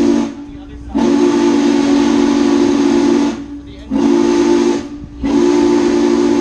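Norfolk & Western 611's steam whistle blown by hand in the grade-crossing signal: the end of the first long blast, a second long blast, a short blast, and the final long blast starting a little after five seconds in. Each blast is a deep, steady chord of several tones over a hiss of steam, and steam hisses softly in the gaps between them.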